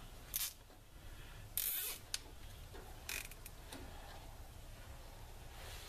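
Plastic zip tie being pulled tight in a few short rasps, the longest about one and a half seconds in, followed by a sharp click.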